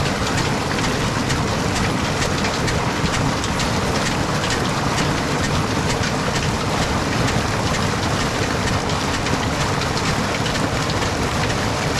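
Tubewell pump discharge: a heavy stream of water gushing from the outlet pipe and splashing steadily into the brick channel. Underneath it, the old diesel engine that drives the pump keeps running.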